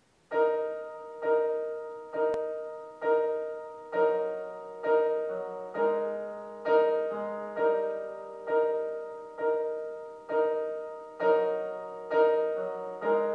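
Piano introduction to a musical theatre song: a repeated chord struck about once a second, each strike fading before the next. Lower bass notes join from about four seconds in.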